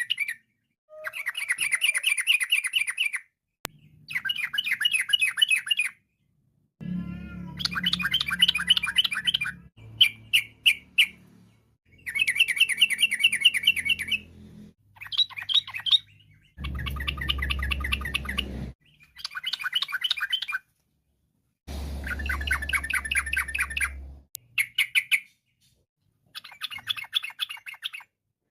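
Yellow-vented bulbul (trucukan) singing: repeated bursts of rapid, bubbling chattering notes, each lasting one to three seconds, with short pauses between.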